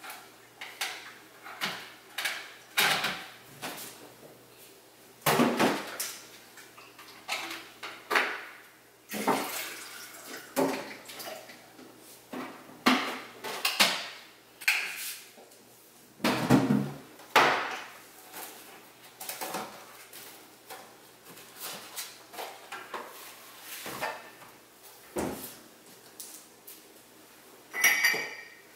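Kitchen clatter while tea is made: irregular knocks and clinks of mugs, spoons and dishes being handled and set down, with a brief high tone near the end.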